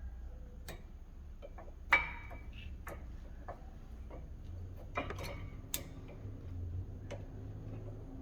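Steel brake pad being worked into a caliper bracket's new anti-rattle clips: scattered metallic clicks and light scrapes, the loudest about two seconds in. The new clips make it a tight fit.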